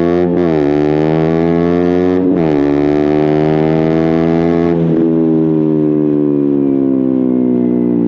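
KTM Duke 125's single-cylinder four-stroke engine through an Akrapovic exhaust with a GPR decat link pipe, pulling hard with two quick upshifts where the revs drop and climb again. It then holds one gear and rolls off the throttle partway through, the exhaust note slowly falling as the bike slows.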